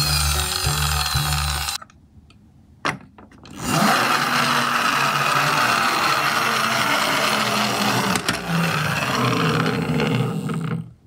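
Music plays for under two seconds, then stops. After a short quiet and a single click, a small toy garbage truck's gear drive whirs steadily for about seven seconds as the truck rolls across a wooden tabletop, and it cuts off near the end.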